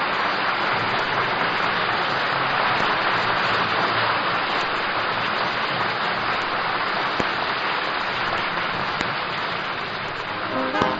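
Studio audience applauding steadily. Band music with brass starts near the end.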